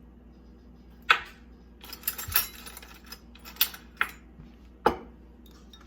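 A spoon clinking and scraping against a bowl while stirring a thick seasoning paste, with several sharp clinks spread through the sound.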